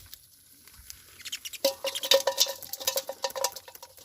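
Small fish flapping and slapping in a drained bamboo fish trap: rapid, uneven clicking and pattering that starts about a second in, with a steady squeaky tone under it.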